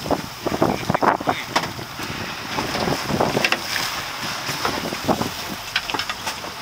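Wind buffeting the microphone in irregular gusts over the rush of water along a boat's hull.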